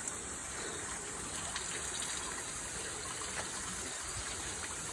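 Water running steadily into a stone shrine purification basin (chōzubachi), a continuous gushing splash.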